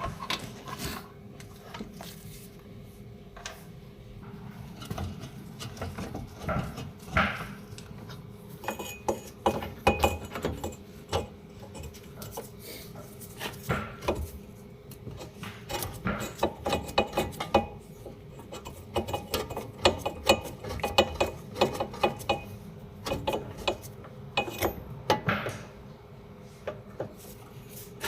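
Metal tools and parts clinking and knocking against each other in irregular runs, some strikes ringing briefly, over a steady hum.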